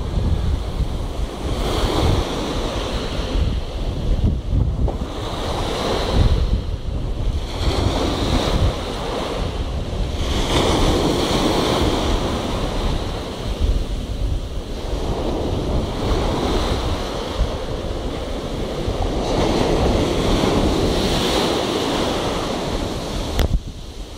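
Sea waves breaking and washing up the shore, the surf swelling and fading every few seconds, with wind rumbling on the microphone throughout.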